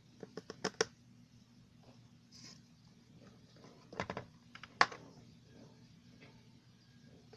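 Light, sharp clicks and taps of small balls on a toy pool table as a hamster plays with them: a quick run of about five clicks in the first second, then louder knocks about four seconds in and just before five seconds.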